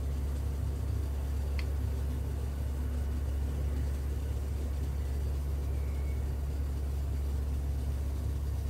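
Steady low background hum, with one faint tick about one and a half seconds in.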